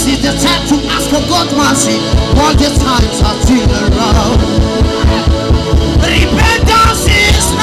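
Live church worship music with voices over it. About two seconds in, a steady low drum beat of about four thumps a second comes in.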